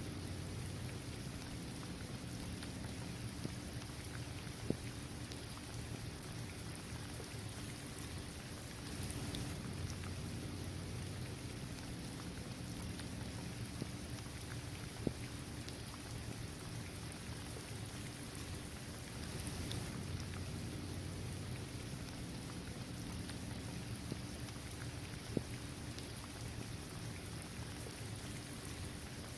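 Steady rain falling on a hard court, trees and grass, with a few sharper single drop impacts close by.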